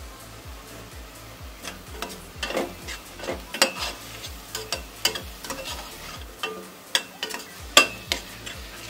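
A perforated steel spatula stirs and scrapes frying onions in a metal pot, the onions sizzling in oil. A run of sharp scrapes and knocks against the pot starts about two seconds in, the loudest near the end.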